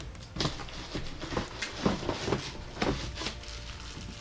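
Packaging wrap rustling and crinkling in irregular short crackles, with a few light knocks, as wrapped accessory parts are handled and lifted out of a cardboard box.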